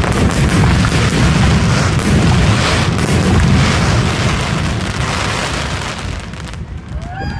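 Aerial fireworks in a rapid barrage: a dense, continuous run of booming shell bursts with crackle, which dies away about six and a half seconds in.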